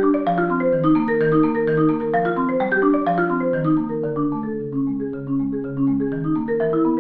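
Saito concert marimba played solo with four mallets: a flowing stream of overlapping, ringing notes, a little softer in the middle and swelling again near the end.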